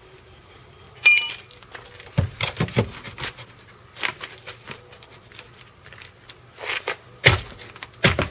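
A sharp metal clink with a brief ringing tone about a second in, then irregular knocks and clatter: a car jack and a wooden block being handled under a raised car.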